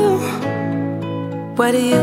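Background music: a slow love song. A sung note trails off, held chords carry on, and a new sung phrase begins near the end.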